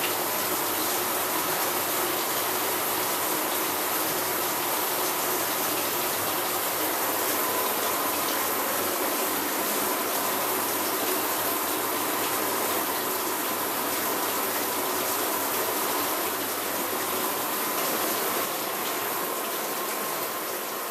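Water spraying steadily from a Waterpik NSL-653 handheld shower head run without its flow regulator: an even hiss of water with a faint steady tone under it, a little quieter near the end.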